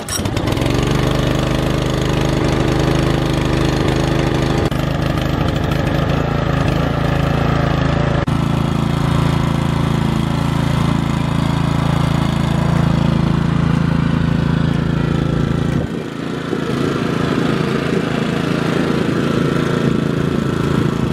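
Tekna TR 60 wheeled brushcutter's 6.5 hp Loncin single-cylinder petrol engine running steadily. Its note changes a few times, around five, eight and sixteen seconds in.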